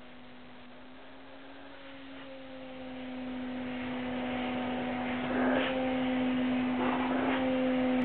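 Canister vacuum cleaner running with a steady hum, its airy suction noise growing louder a few seconds in as the nozzle is worked over a cat's fur, with a couple of brief louder swishes.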